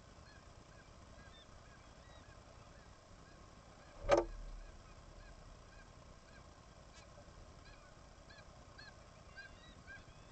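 Seabird colony on a bird cliff: many short calls repeating, with one loud, sharp sound about four seconds in.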